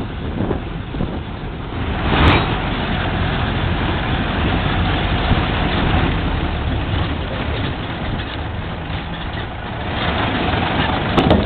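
Pickup truck driving over a cobbled street, heard from its open bed: engine running under a steady rumble of tyres on the stones, with wind noise. A sharp knock about two seconds in and a few more near the end, jolts of the truck over the stones.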